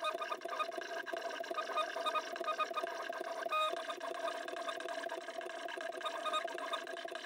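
Stepper motors of a Zonestar Z6F 3D printer turned pen plotter whining as they drive the pen through a drawing. A steady tone underlies shorter tones that jump in pitch every fraction of a second as the moves change.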